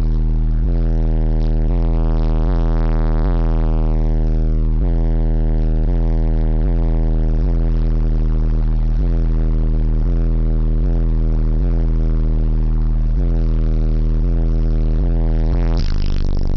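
Truck sound system with Ascendant Audio subwoofers playing bass-heavy music at high volume for an SPL demo. A deep bass note is held under a repeating beat, with a falling sweep about three to four seconds in.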